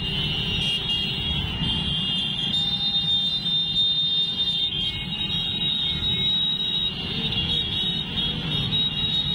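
Many motorcycle engines running at low speed in slow, crowded traffic, a steady low rumble. Over it is a continuous high-pitched buzzing tone.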